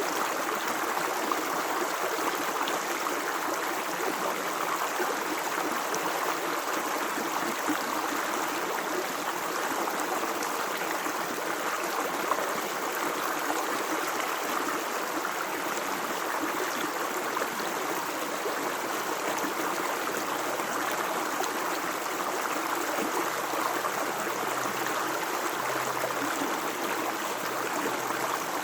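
Running water of a small stream flowing and splashing steadily, a continuous rushing and gurgling without pauses.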